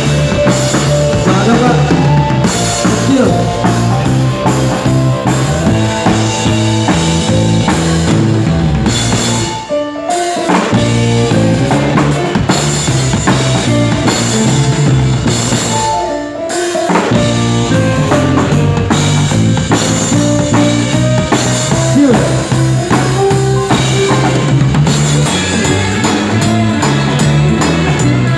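A live band playing, with an acoustic drum kit (bass drum, snare and cymbals) driving the beat under electric guitar. The band drops out briefly twice, about ten seconds in and again about sixteen seconds in, then comes back in.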